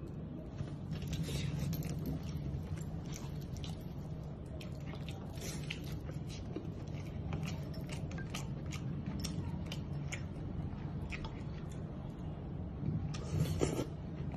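Close-up chewing and wet mouth clicks of a man eating a fried chicken leg piece, over a steady low hum. Near the end, a louder burst of sipping as he drinks from a bowl of soup.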